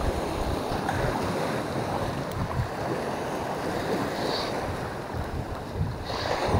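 Wind buffeting the microphone, with sea waves washing against a rocky shore.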